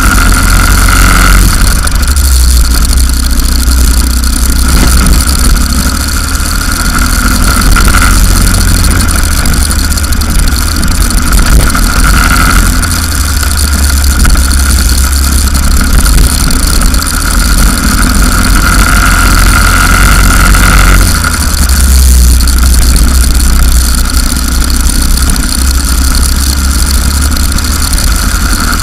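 Go-kart engine running at racing speed on a lap, its note swelling several times along the straights and easing off in between. A heavy low rumble from wind on the onboard microphone runs under it.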